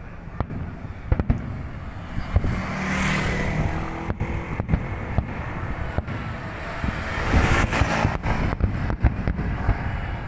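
Fireworks display: scattered sharp bangs, with hissing swells about three seconds in and again near the end.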